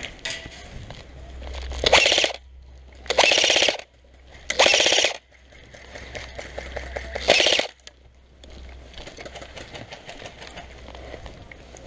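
Airsoft gun firing four short full-auto bursts of rapid clicks, each lasting under a second.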